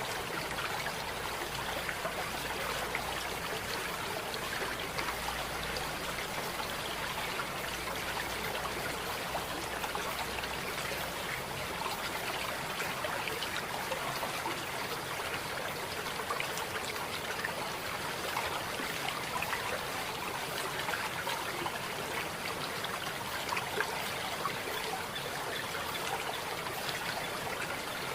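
Running water of a small stream, trickling and babbling steadily without a break.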